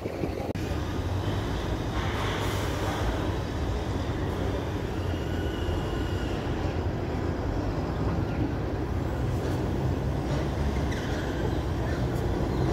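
Steady low rumble of vehicle engines and traffic, unbroken throughout.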